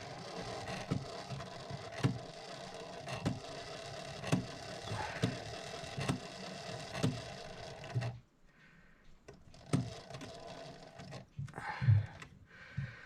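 Mechanical clock movement's train running under mainspring power: a steady whirr with a click about once a second, which stops about eight seconds in. A few light clicks of handling follow.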